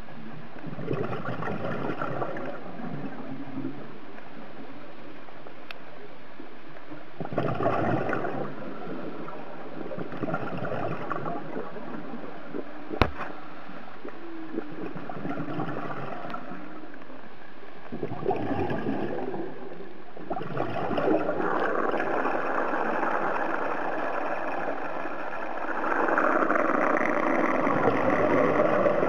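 Scuba regulator breathing heard underwater: exhaled bubbles gurgling in bursts every few seconds, running longer and louder over the last several seconds. A single sharp click comes about halfway through.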